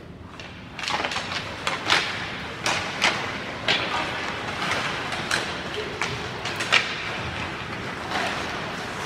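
Ice hockey play: skate blades scraping and cutting the ice and sticks clacking on the puck and on each other, in a string of sharp scrapes and clacks. It starts suddenly about a second in as the faceoff is taken.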